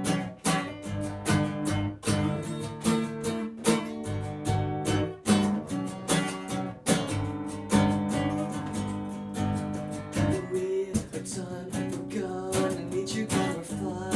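Guitar strummed in a steady rhythm, chords ringing between the strokes: an instrumental passage between sung verses.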